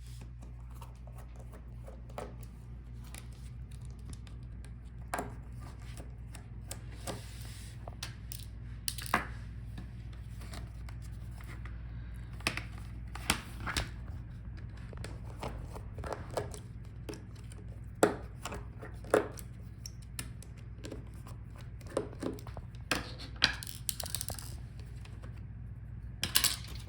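Scattered small clicks and taps of tools, screws and plastic parts as a laptop touchpad is removed from its palmrest, over a steady low hum.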